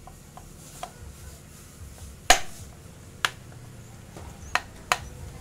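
Sharp clicks and knocks of a cylinder head cover being pressed and seated onto an engine's head by hand: one loud knock about two seconds in, then three lighter ones near the end.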